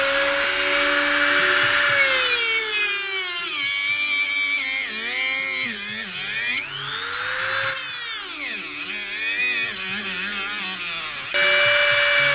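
Dremel rotary tool with a small cut-off disc whining at high speed. Its pitch sags and wavers each time the disc bites into the worn screw heads of the boot sole, then climbs back to full speed, several times over. It is cutting fresh flat-screwdriver slots into the rounded-out screws so the sole can be unscrewed.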